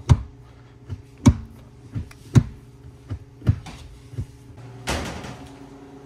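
A Maddog short-throw shifter in a Dodge Neon SRT-4 being worked by hand, giving about eight sharp clunks over four seconds as the lever snaps into its gates, stiff with new shifter bushings. A short rustle follows about five seconds in.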